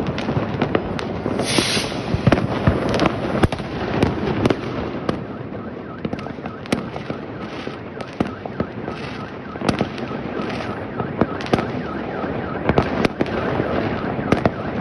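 Many New Year fireworks going off across a city: irregular sharp bangs and cracks, some near and some distant, over a continuous rumble of far-off bursts, with a brief hiss about a second and a half in.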